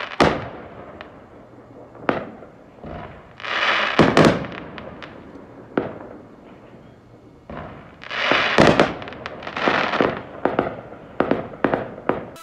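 Aerial fireworks going off: sharp bangs of bursting shells a second or two apart, mixed with longer spells of crackling noise, and a quick run of pops near the end.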